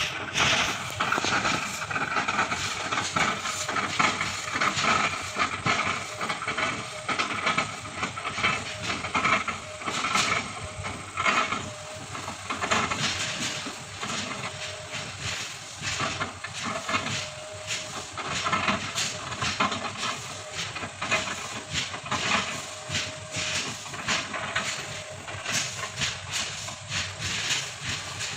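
Kobelco excavator working: the engine and hydraulics run steadily under a hiss, with many short knocks and cracks as the machine chips up an oil palm trunk.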